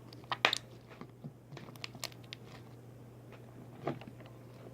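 Slime being squeezed and worked by hand, giving a scattering of short, soft clicks and crackles, the loudest about half a second in.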